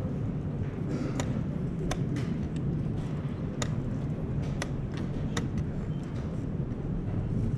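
Wooden chess pieces set down sharply on the wooden board and chess clock buttons slapped in a blitz time scramble: several sharp clicks, roughly one every half second to a second, over a steady low rumble of the playing hall.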